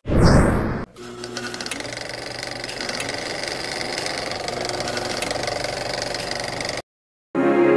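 Animated logo-intro sound effects: a loud hit with a falling whoosh, then a steady buzzing glitch noise with fast, even ticks for about six seconds that cuts off abruptly. After a brief silence, soft music starts near the end.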